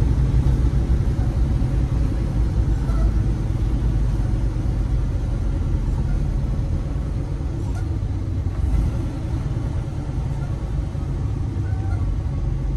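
Steady low rumble of a semi-truck's engine and road noise heard inside the cab while driving.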